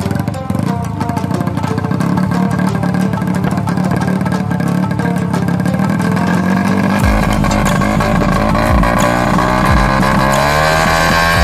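Drag-tuned Suzuki Satria FU motorcycle engine running loudly and steadily, its pitch wavering near the end, with background music.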